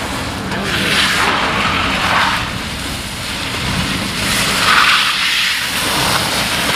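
Electric Nissan Leaf driven hard through a cone course on a wet, sprinkler-soaked sealed surface. There is no engine note, just tyre hiss and scrub on the wet seal, swelling several times as the car turns.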